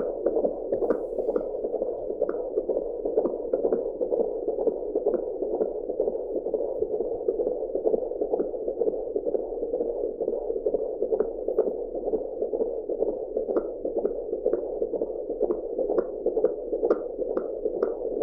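Fetal heartbeat heard through an AngelSounds handheld fetal doppler: a fast, steady run of whooshing beats, about two and a half a second, over a constant doppler hiss.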